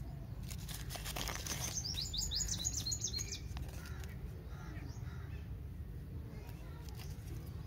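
A paper candy wrapper crinkles as it is opened. About two seconds in, a bird gives a quick run of high, falling chirps. A low, steady rumble sits underneath.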